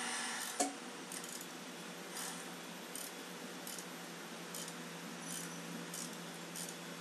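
A ratcheting wrench turns a stud extractor, backing a broken exhaust manifold stud out of the cylinder head. It gives short metallic clicks about every two-thirds of a second, with one sharper click about half a second in.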